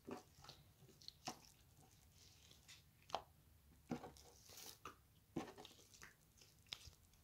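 Homemade slime being pressed and folded by hand, making faint, irregular wet clicks and crackles.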